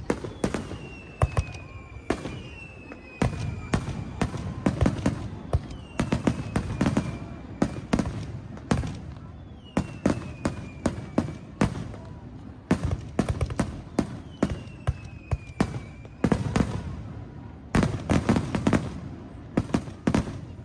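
Fireworks display: aerial shells bursting in rapid clusters of sharp bangs with rumbling echoes, and a few high falling whistles among them.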